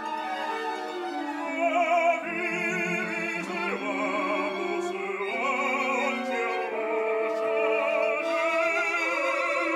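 A male classically trained voice singing opera with a wide vibrato over sustained instrumental accompaniment, swelling loudest about two seconds in.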